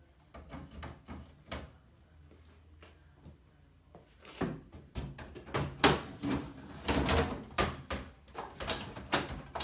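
A drawer slide being lifted off its mounting grid and clicked into a higher notch: a run of sharp clicks and knocks, a few at first, then a dense cluster in the second half.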